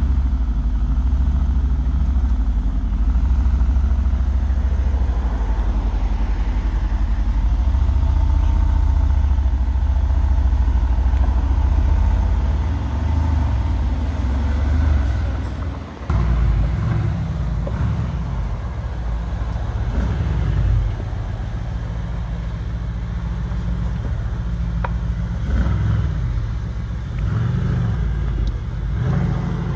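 Mercedes-AMG GT R's twin-turbo V8 running with a steady deep idle. About halfway there is a brief break, then a lower, more uneven engine sound with a few short revs as the car moves off.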